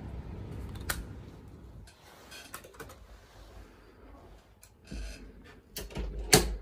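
Low street rumble with wind on the microphone, then the hush of a small room with scattered clicks and knocks, a louder knock about five seconds in and a sharp thump just before the end.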